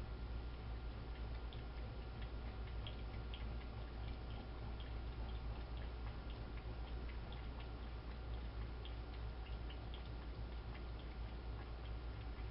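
A skunk lapping water from a bowl: faint, irregular small wet clicks, several a second, over a steady low hum.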